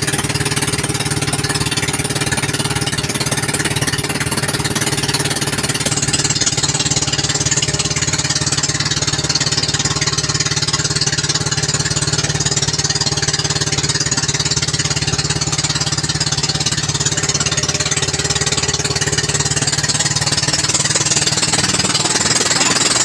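Outrigger bangka boat's engine running steadily at cruising speed, a loud rattling drone. A rushing hiss of water and wind over it grows stronger about six seconds in.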